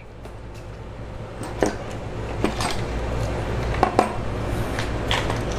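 Metal valve cover being worked loose and lifted off a 2.4 Multiair engine's cylinder head: a few light metallic clinks and knocks over a low steady hum.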